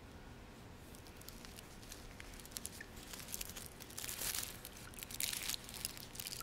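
Foil and paper wrapper of a chocolate bar being peeled open by hand, crinkling. It starts faint and becomes a busier run of crackles from about halfway through.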